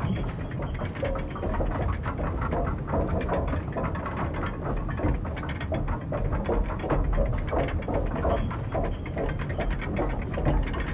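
Running machinery: a dense, continuous crackling clatter over a steady low rumble.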